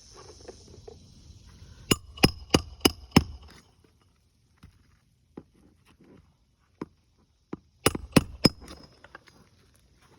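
Hand hammer striking on a shingle roof: five quick blows about a second and a half in, then a pause with a few light knocks, then four more quick blows near the end.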